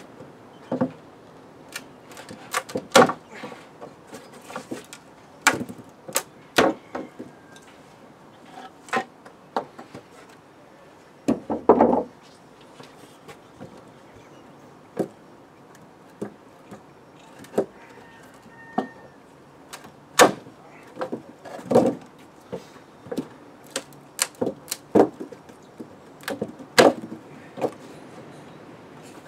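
Wooden pallet being levered apart with a long-handled pry bar: irregular sharp cracks and knocks as the slats and their nails give way, with a longer, loud creak about twelve seconds in.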